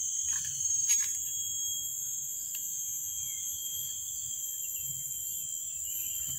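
Steady high-pitched insect chorus droning without a break, with a short click about a second in.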